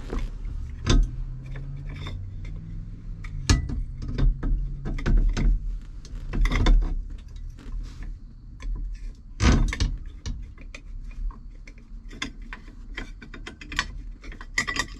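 Hand tools and small metal parts clicking and clattering as screws are fitted through a steering wheel into its hub, in irregular sharp clicks and knocks over a low hum.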